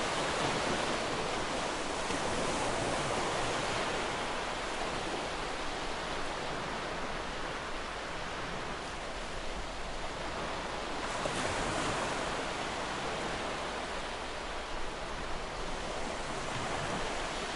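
Gentle ocean waves washing onto a beach: a steady rushing wash that swells and eases slowly, with a brighter surge about eleven seconds in.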